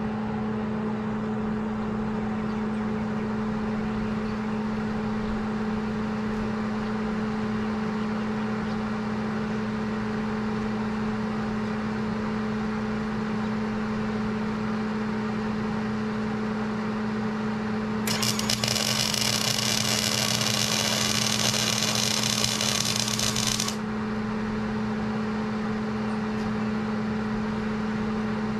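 A steady machine hum throughout; about two-thirds of the way in, a MIG welder's arc strikes and buzzes and crackles loudly for about five and a half seconds, then cuts off as the bead on the steel ends.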